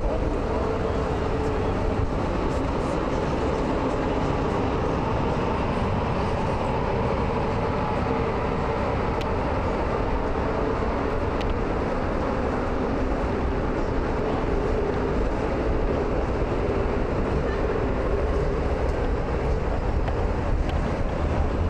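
Steady city street noise: a continuous low rumble of traffic and idling engines with a faint steady hum.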